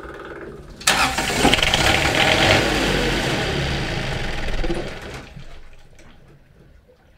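A boat's marine generator engine being cranked: it turns over loudly for about four seconds, then winds down and does not keep running. The generator has a fault the owner suspects is electrical, a stator or wiring problem.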